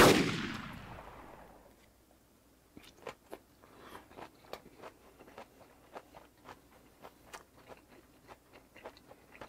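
A sudden loud bang right at the start that dies away over about a second and a half, likely an edited-in sound effect. Then close-miked chewing of a big mouthful of fermented skate, boiled pork and kimchi, with small wet clicks and smacks two or three times a second.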